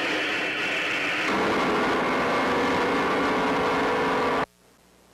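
A loud synthesized dramatic sting for a cartoon moment: a dense held chord over a noisy wash. It shifts lower about a second in and cuts off suddenly after about four and a half seconds.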